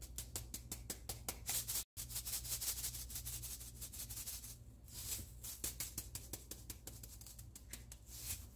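Hand-twisted salt grinder grinding pink salt over raw steaks: a fast run of dry clicks and crunches, broken by a short gap about two seconds in.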